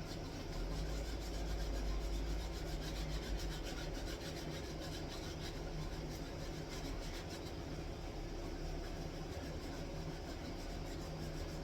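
Sandpaper rubbing back and forth on a small carved wooden part, hand sanding in quick repeated strokes, over a steady low hum.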